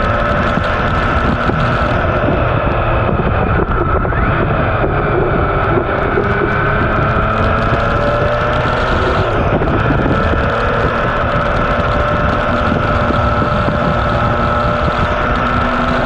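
MV Agusta Turismo Veloce Lusso's three-cylinder engine running under way at a fairly steady speed, its pitch drifting slightly up and down, with wind rushing over the camera microphone.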